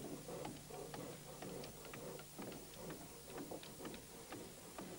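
Faint, irregular tapping and knocking of work on wooden boat hulls, several sharp taps a second over a low background murmur.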